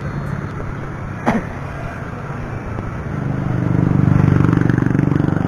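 Road traffic heard from a moving bicycle: a steady rumble, then a motor vehicle's engine growing louder from about three seconds in, with a fine, even pulsing. A single sharp click a little after one second.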